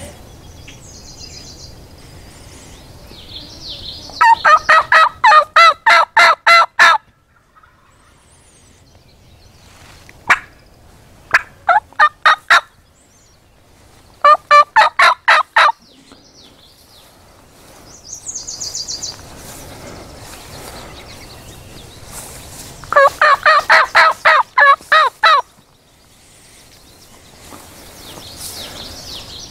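Wild turkey yelping: four loud runs of evenly spaced yelp notes at about four a second, the longest, of about ten notes each, early on and again near the end, with a single yelp between them.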